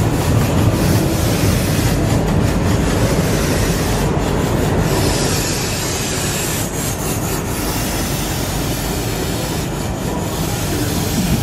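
Diesel locomotives rolling past at close range: a steady low engine rumble mixed with the noise of steel wheels on the rails and a few light clicks.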